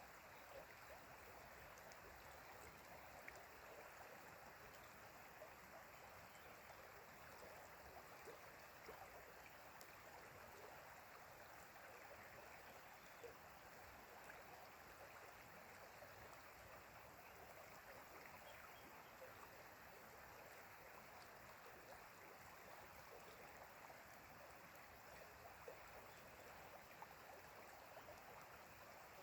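Faint, steady rushing and babbling of a flowing stream, with small splashes scattered through it.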